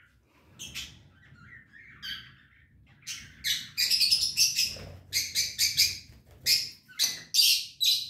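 Peach-faced lovebirds calling: a few scattered high-pitched chirps, then a rapid run of loud chirps from about three seconds in.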